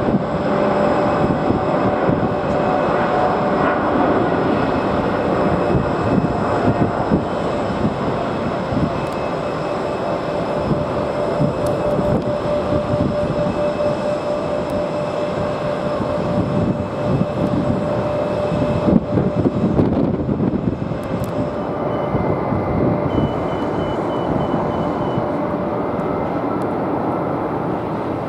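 Boeing 777 jet engines at takeoff power: a steady, loud rumble with a held whine as the airliner rolls and climbs away. The sound dips and changes briefly about two-thirds of the way through.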